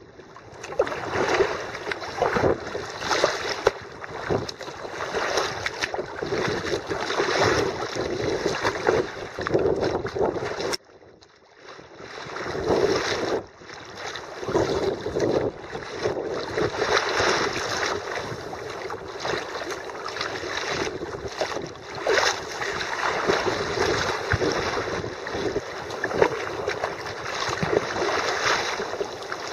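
Sea kayak moving through choppy sea: water rushing and splashing along the hull at the bow, in rising and falling surges, with wind buffeting the microphone. The noise drops away sharply for a second or two about halfway through, then returns.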